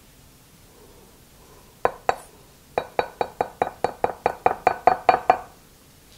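A measuring spoon clinking against a glass measuring cup while mustard is stirred into orange juice: two clinks, then a quick run of about a dozen, roughly five a second, each ringing briefly.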